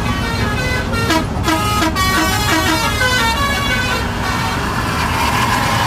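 A bus's multi-tone musical horn ("telolet") playing a rapid run of changing notes for about four seconds over the steady drone of bus engines and road noise on a highway. Near the end it settles into a steadier horn tone.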